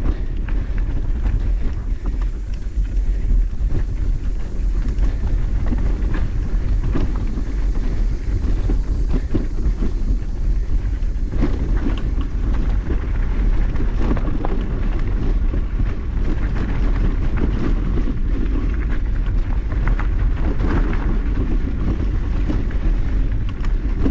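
Mountain bike rattling and clattering over rough, rocky trail, with many short knocks from the frame and wheels hitting rock over a steady rumble of wind on the microphone.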